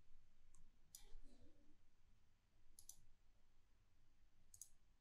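A few faint computer mouse clicks against near silence, some in quick pairs: one about a second in, a pair near three seconds and another pair near the end.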